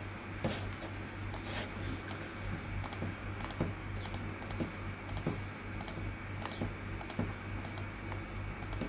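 Keystrokes on a computer keyboard, about two sharp clicks a second and unevenly spaced, over a steady low hum: the midpoint of the next bisection step being worked out.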